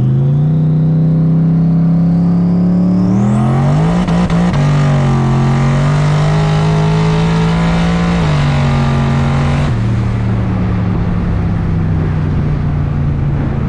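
Twin-turbo Ford Mustang SVT Cobra's 4.6-litre DOHC V8 under hard acceleration on mid boost, heard from inside the cabin. A turbo whine climbs and shoots up about three seconds in, with rushing hiss, and the engine note steps down near four and a half and eight seconds as it shifts gear. Near ten seconds the hiss drops away as the throttle is lifted and the engine settles to a steadier note.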